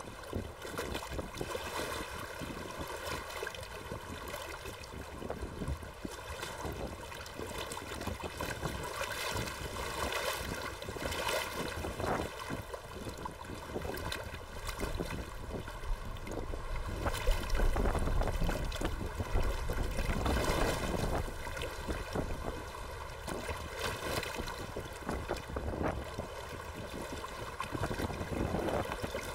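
Gusty wind buffeting the microphone, strongest in a surge about two-thirds of the way through, over choppy water slapping against the dock and boat ramp.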